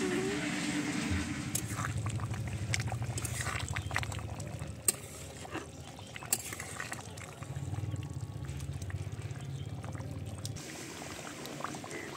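Chicken curry gravy bubbling as it simmers in a large metal pan, with a few sharp clinks of the spatula against the pan. A low hum comes and goes twice in the background.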